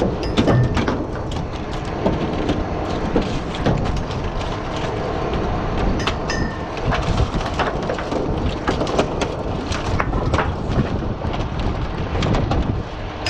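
Oyster workboat's engine running steadily, under an irregular clatter of oyster shells knocking together as they are culled by hand on a wooden culling board.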